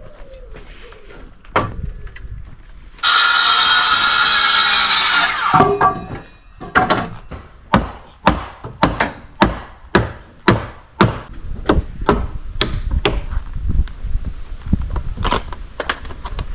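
A power tool runs loudly for about two and a half seconds and winds down. Then a hammer strikes timber in a steady run of blows, about two a second.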